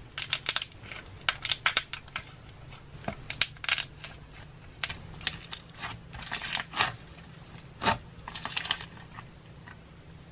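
Slime being pressed and squished by hand, giving bunches of sharp clicks and crackles with short pauses between them.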